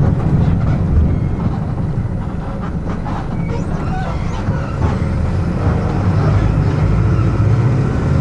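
Front-mounted diesel engine of a Mercedes-Benz OF-1722M bus running under way, heard from inside the coach. The engine drone eases off about two seconds in and builds again after about five seconds.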